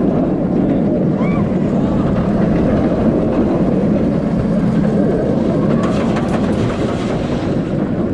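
Wind rushing over the ride camera's microphone, with the rumble of a B&M inverted roller coaster train (Montu) running at speed through its course; a steady, loud rushing roar.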